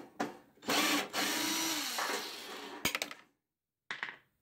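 Cordless drill/driver running for about two and a half seconds, backing a Phillips screw out of a microwave oven's metal casing, with a few clicks as the bit seats and the screw comes free.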